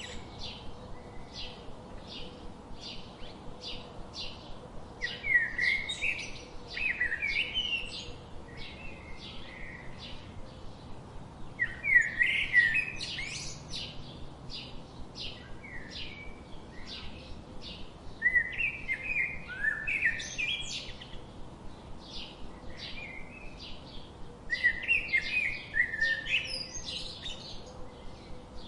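Songbirds singing. One keeps up a steady run of short, high chips, about two or three a second. A louder warbling song phrase comes in four times, roughly every six seconds.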